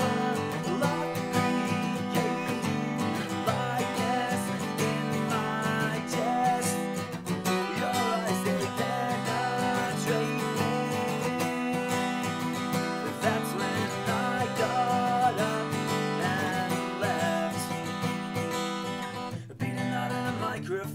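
Acoustic guitar strummed steadily, accompanying a man singing. The playing drops away briefly near the end.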